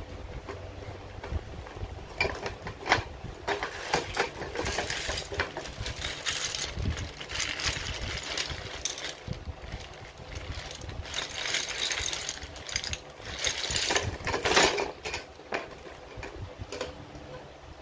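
Unpacking handling noise: a plastic bag of small hardware parts crinkling, with the parts and the rack's plastic and metal pieces clicking and knocking against each other and the cardboard box.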